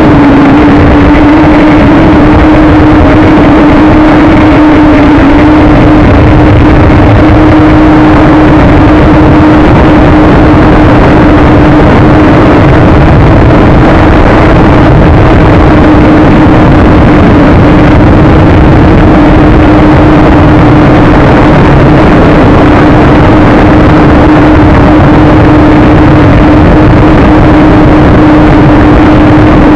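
JJRC X1 quadcopter's brushless motors and propellers running at a steady pitch, picked up by the camera mounted on the drone, over heavy wind rumble on the microphone from gusts of 15 to 27 mph.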